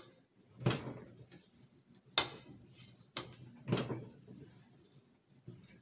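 Handling knocks and clicks of a PK9 pistol and its new arm brace and grip parts being moved and set down: four separate hits over about three seconds, two duller knocks and two sharper clicks.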